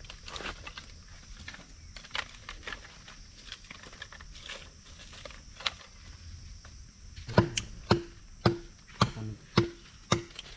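Dry sticks and split bamboo clattering and crackling as they are laid by hand for a fire. About seven seconds in, a run of loud, sharp wooden knocks begins, roughly two a second, like wood being chopped.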